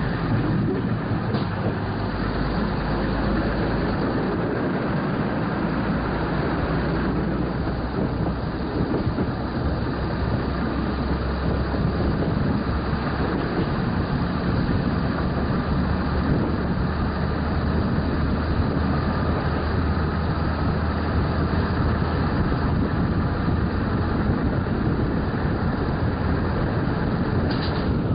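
Regional passenger train running, heard from inside the carriage: a steady rumble of wheels on the rails with a low hum, and a few sharp clicks near the end.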